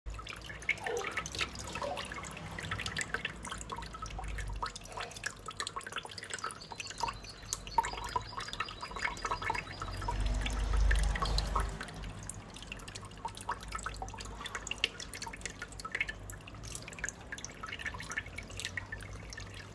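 Irregular dripping and splashing of water, many small uneven drops, with low rumbles about four and eleven seconds in.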